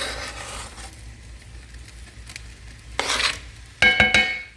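Chopped onion scraped into a pan of ground beef and stirred. About four seconds in, a utensil knocks against the pan, which rings briefly.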